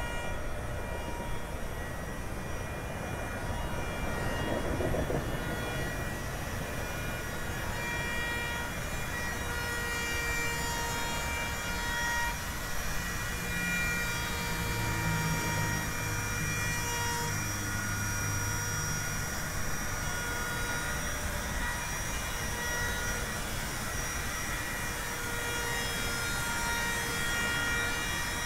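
Handheld electric wood router running steadily, its motor whine heard with several overtones above it, as it cuts into a wooden sign.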